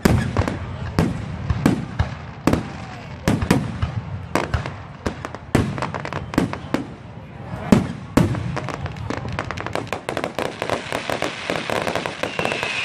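Fireworks display: shells bursting in deep booms at irregular intervals of about half a second to a second. From about nine seconds in, the booms give way to dense, rapid crackling from many small bursts.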